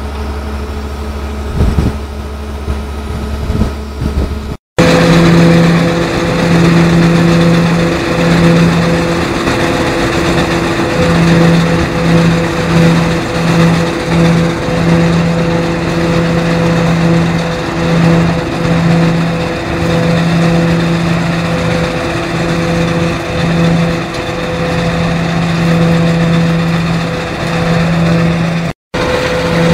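A tractor engine runs for about four and a half seconds. After an abrupt cut, a Braud straddle olive harvester runs as it passes over a row of olive trees, a loud steady machine hum whose low tone keeps pulsing on and off.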